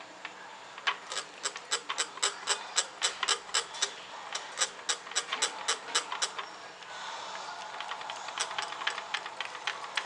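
Wire balloon whisk beating cake batter by hand in a glass bowl, its tines clicking against the glass about four times a second. From about seven seconds in, the whisking gets quicker and denser, with more swishing through the batter.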